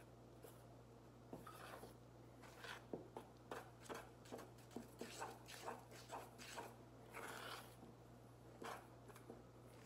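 Spoon stirring thick icing in a stainless steel bowl: faint, irregular scrapes and taps against the bowl, over a low steady hum.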